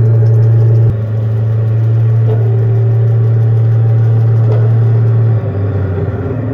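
Simulated tank engine running, played through the speaker of a 1/8 scale RC M1A2 Abrams sound unit: a steady low drone whose note shifts slightly just after five seconds, with a couple of faint ticks.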